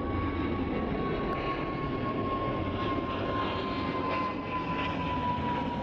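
Jet airliner engines running: a steady rushing noise with a high whine that slowly drops a little in pitch.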